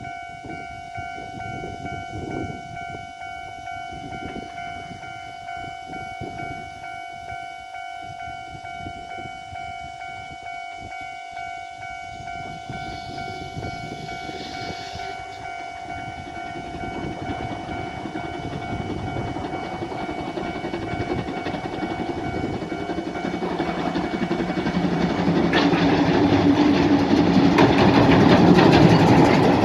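JNR Class C12 steam tank locomotive hauling passenger coaches, approaching and growing steadily louder over the last ten seconds into a loud rumble of wheels on a steel truss bridge. A steady high ringing tone sounds through the first two-thirds and stops.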